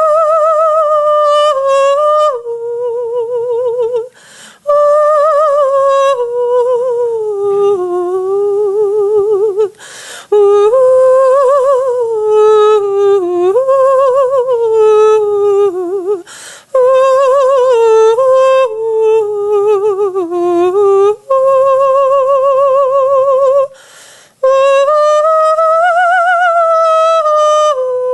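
A woman singing a wordless melody solo, on 'ooh', with a strong vibrato. Her long, slowly rising and falling phrases are broken by four short breaths.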